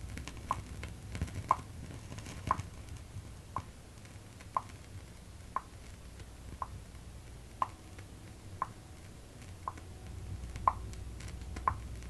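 Record-player playback of the top end of a test-record frequency sweep (15,000 cycles and up), whose tone lies above what is heard. What remains is a low hum with a soft, regular tick about once a second.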